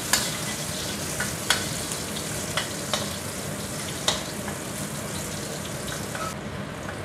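Chopped garlic and chilli sizzling in hot oil in a stainless steel wok, stirred with a metal spatula that clinks and scrapes against the pan several times. The sizzle softens a little near the end.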